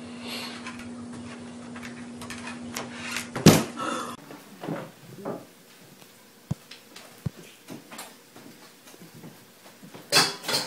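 A steady low hum with one loud, sharp knock about three and a half seconds in. After the hum stops, a few faint clicks and taps.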